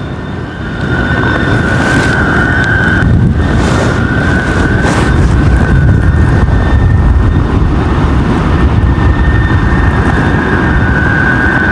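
Strong gusty wind buffeting the microphone, with a steady high-pitched hum from a Vietnamese flute kite (diều sáo) flying overhead, which weakens briefly a couple of times. The wind is the loudest sound.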